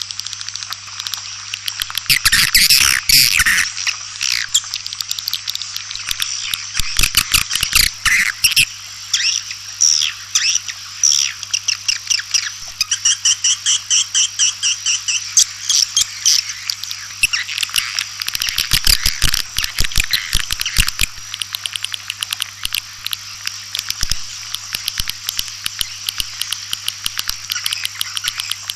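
White-nest swiftlets calling: a dense, continuous chatter of rapid clicking trills and chirps, with a faint steady hum underneath. It is a recorded swiftlet call-lure sound, the kind played to draw swiftlets into a nesting house.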